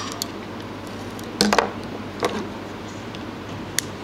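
Fishing line and its spool being handled on a tabletop: a couple of short knocks and rustles about halfway through and a single click near the end, over a steady low hum.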